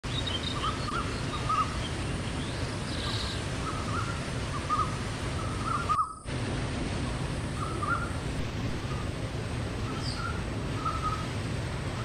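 Waterfall rushing steadily, with a bird's short chirping calls repeating over it. The sound cuts out for a moment about six seconds in.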